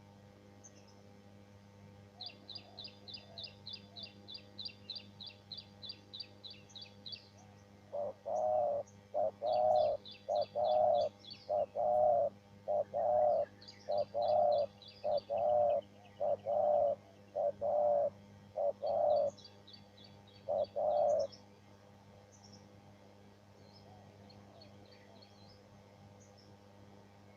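Spotted dove (tekukur) cooing: a run of about a dozen low coo notes in quick succession, starting about eight seconds in and stopping about eight seconds later, with one more coo near the end. A small bird's high, rapid chirping trill comes before the coos and again in short bits among them.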